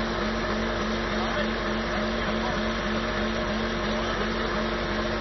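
Off-road 4x4 engines running steadily, with a low pulse repeating about three times a second.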